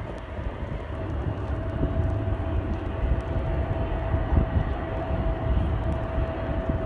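Twin-engine jet airliner on short final approach to land, its engines giving a low steady rumble with a thin steady whine above it.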